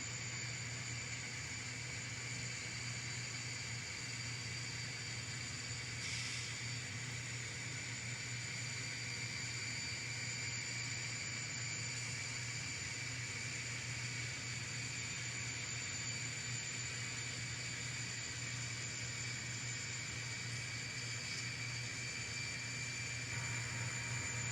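Steady low hum and hiss with faint constant high-pitched tones, unchanging throughout and a little louder near the end.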